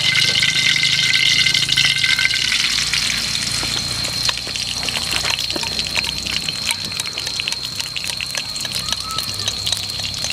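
Eggs frying in melted lard in a pan: a steady sizzle full of small crackles and pops, loudest in the first couple of seconds after they go in. A thin steady high-pitched tone runs under it.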